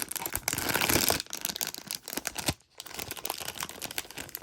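Plastic crinkling and tearing as a toy surprise bag is ripped open and handled. The crackle is loudest in the first second and carries on unevenly.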